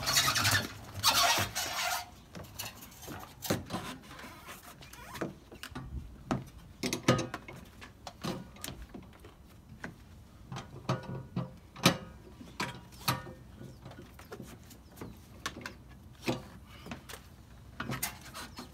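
A dirt bike being rolled up a loading ramp into a van, with a louder clatter over the first two seconds, followed by irregular clicks, knocks and ratcheting as tie-down straps and their hooks are fastened and tightened on the bike.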